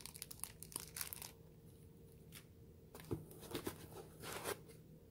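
Plastic packaging crinkling in the hands, in two bouts: a run of crackles over about the first second, then more crinkling and rustling from about three seconds in as a bagged accessory is pulled from a foam insert.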